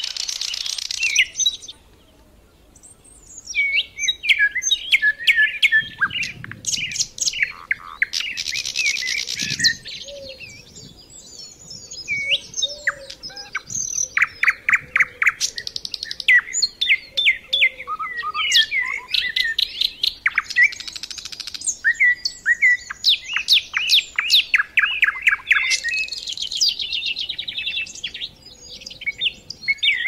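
Songbirds singing: a busy mix of high chirps, fast trills and whistled notes, with a brief pause about two seconds in.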